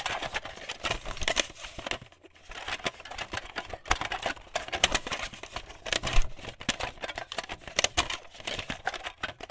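Typing on a computer keyboard: fast, irregular key clicks in spurts with short pauses.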